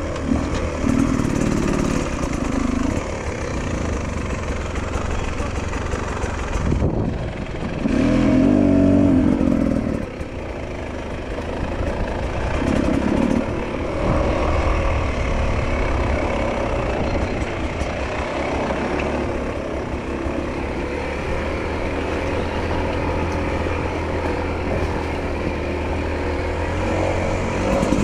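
Enduro motorcycle engine running as the bike is ridden, the throttle opening and closing, with louder bursts of revs at the start, around eight to ten seconds in, and about thirteen seconds in.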